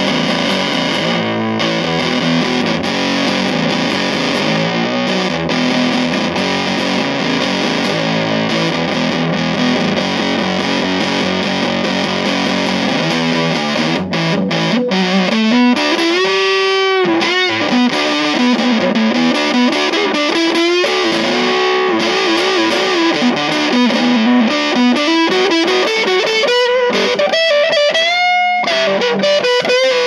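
Electric guitar played through a Fuzz Face-style fuzz pedal into a Marshall combo amp, heavily fuzz-distorted. Thick chords and riffing give way about halfway through to single-note lead lines with string bends and long sustained notes.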